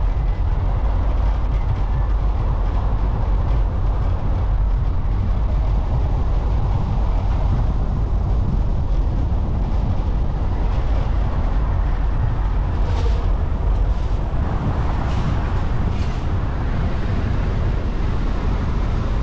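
Steady low rumble of road and wind noise from a car driving, with a few faint ticks about two-thirds of the way through.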